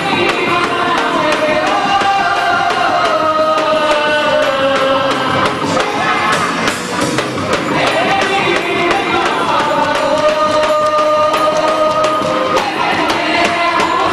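Festa junina music: a voice singing long held notes over a steady percussion beat, with a crowd in the background.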